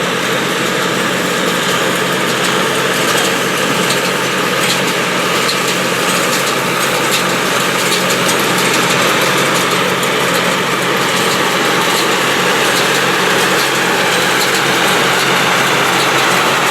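An engine running steadily at an even speed, with no change in pitch or load.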